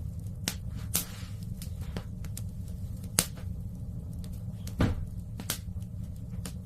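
Wood fire burning in a fireplace, crackling with sharp irregular pops over a steady low rumble; the loudest pop comes about three seconds in, and a longer crackle just before five seconds.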